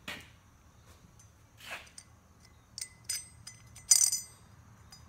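Small metal hardware clinking as it is handled: a light click at the start, a few light clinks about three seconds in, and a louder clink with brief metallic ringing about four seconds in.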